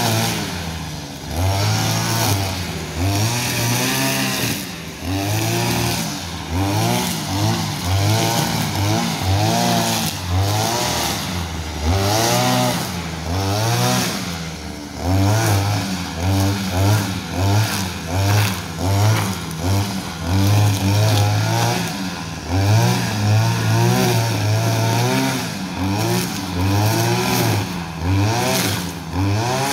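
Petrol brushcutter engine revving up and falling back over and over while cutting weeds and grass, its pitch rising and dropping every second or so.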